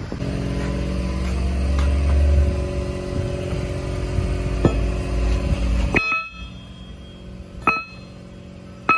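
An engine running steadily, a low hum with steady tones above it, cutting off suddenly about six seconds in. After that it is quieter, with a few sharp metallic clinks that ring briefly.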